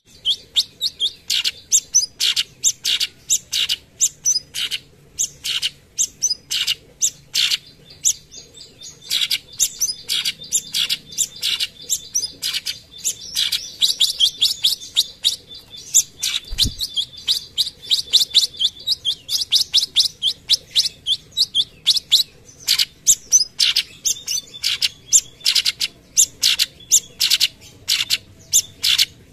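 Cucak cungkok leafbird singing its 'tembakan' (shot) notes: a rapid string of short, sharp, high chips several a second, running together into a dense trill in the middle stretch.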